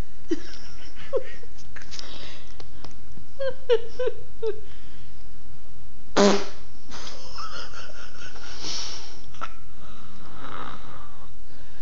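Fake fart noises made by a person: short pitched blasts, a quick run of four or five about three and a half seconds in, and a louder one about six seconds in.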